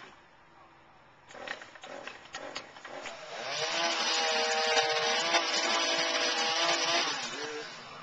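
Chainsaw high up a tree, quiet at first with a few sharp knocks, then revving up about three seconds in and running at high speed through a cut before easing off near the end.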